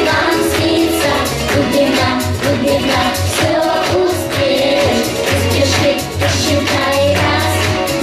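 Children singing a song into microphones over a pop backing track with a steady bass line.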